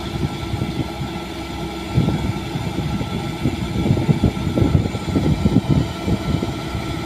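An engine running steadily, with a constant hum of steady tones over an uneven low rumble.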